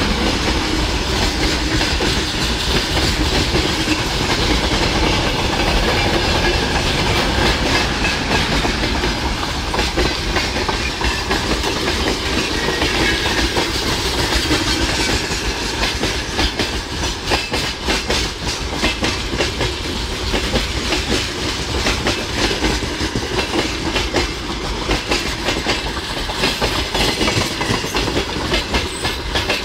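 Freight wagons of a long goods train rolling past close by (covered hoppers, a tank car and open gondola cars), their wheels clattering over rail joints in quick, continuous runs of clacks over a steady rumble of bogies on the track.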